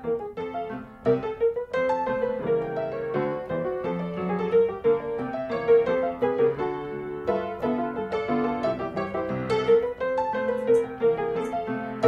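Background piano music made of short, evenly paced notes.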